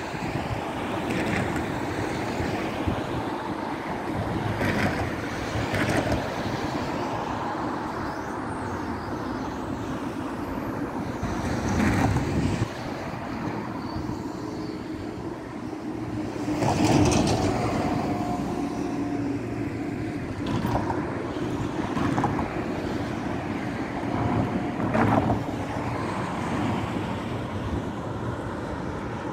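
Road traffic passing along the bridge, a steady rush of tyres and engines that swells as vehicles go by, loudest a little past halfway, with wind buffeting the microphone.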